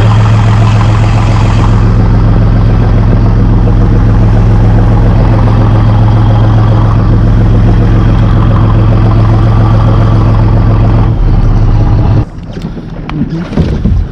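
Boat engine running steadily and loud, then dropping away suddenly about twelve seconds in.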